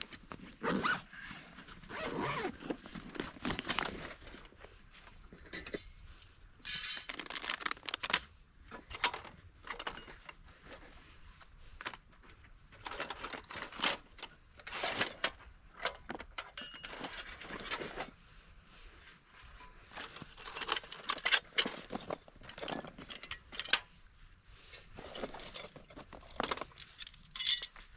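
Gear being handled by hand: irregular light clinks, knocks and rustles, some of them metallic, with no steady rhythm.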